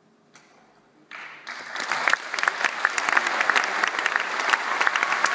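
A concert audience breaks into applause about a second in, after a moment of near silence at the end of the piece, swelling within a second to steady clapping from a large crowd.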